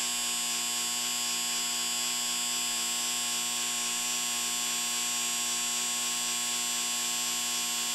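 Electric football game board switched on and vibrating: a loud, steady electric buzz that drives the miniature player figures down the field.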